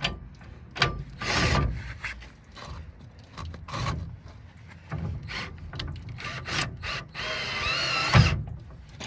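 Knocks and scraping of stabilizer pads and wooden leveling blocks being handled and set under a travel trailer's stabilizer jacks. Near the end a cordless drill runs for about a second, cranking a stabilizer down, and is followed by a sharp, heavy thump.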